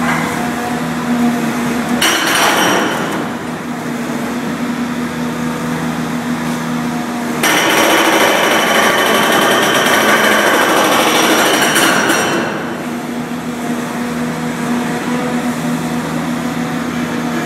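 Hydraulic breaker on a TEREX tunnel excavator hammering rock in rapid blows: a short bout about two seconds in, then a longer, louder one of about five seconds in the middle. Under it, the machine's steady running hum.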